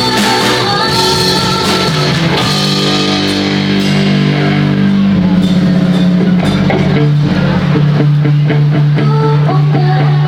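Live rock band playing: electric guitar and drum kit under a female singer, loud and steady.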